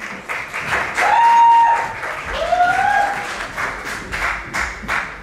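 Audience clapping and cheering, with two loud shouted whoops, one about a second in and another rising one about two seconds in.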